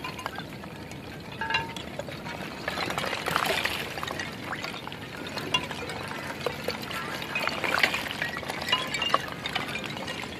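Small chunks of floating ice knocking against each other and against rounded shore rocks as small waves wash in, making bright clinking, tinkling notes over the sloshing water. The wash swells twice, a few seconds in and again later on.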